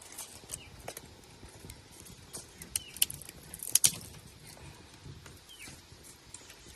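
Scattered sharp clicks and knocks, loudest in a cluster about three to four seconds in, with a few faint short falling chirps.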